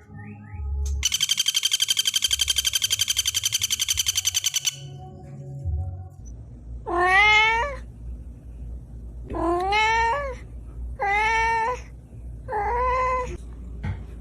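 A cat meows four times, each meow about a second apart and bending up then down in pitch. Before the meows, a rapid high-pitched trill runs for about four seconds and then stops.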